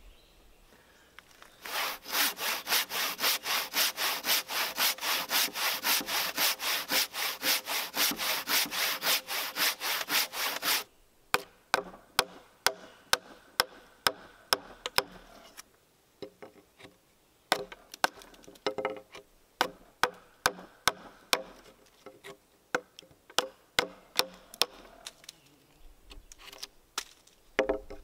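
Handsaw cutting into a pine 8x8 timber with fast, even strokes, about four a second, stopping abruptly about eleven seconds in. Then a long-handled chisel chops into the cut end of the timber with sharp, irregular knocks.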